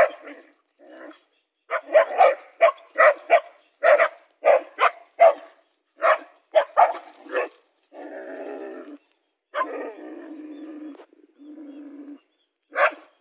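Dogs barking at a snake in quick runs of short barks, about two a second. These give way to two or three drawn-out, lower growls, each about a second long, and then one last bark near the end.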